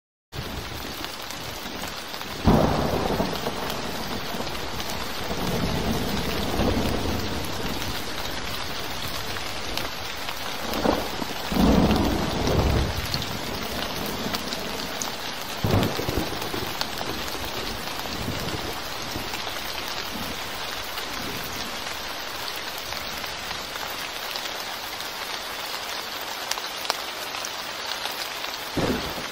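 Rain falling steadily onto a flat, puddled surface, a continuous dense patter of drops. Several low rumbles and thumps rise over it, the loudest about two and a half and twelve seconds in.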